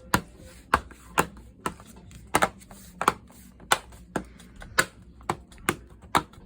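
Plastic snap clips of a Chromebook's bottom case clicking into place one after another as the case is pressed back on: a series of sharp clicks, about two a second.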